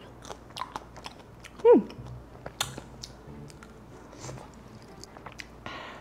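Candied tangerine tanghulu being bitten and chewed: the hard sugar shell cracks in repeated sharp crunches. A short falling vocal "mm" comes a little under two seconds in.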